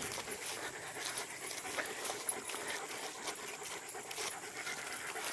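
German Shepherd dog panting.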